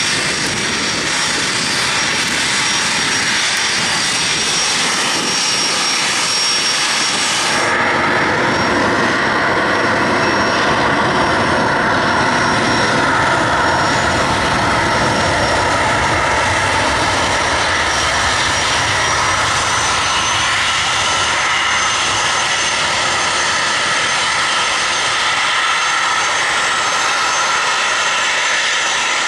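Business-jet turbofans running with a steady high whine. About eight seconds in the sound changes abruptly to a Gulfstream G-IV's Rolls-Royce Tay turbofans at takeoff thrust: loud, continuous jet noise with several whining tones that shift slightly in pitch.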